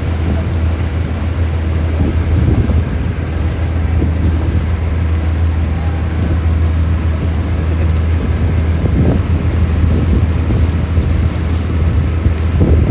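Steady low engine hum of a motor vehicle running at a constant pace, under a haze of road or water noise.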